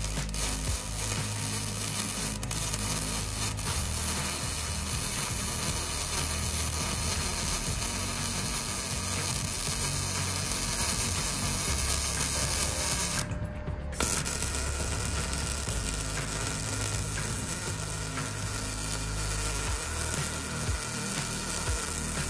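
MIG welder arc crackling and sizzling steadily as it lays a bead on the steel mower deck, repairing a crack. The arc stops for under a second about two-thirds of the way through, then strikes again.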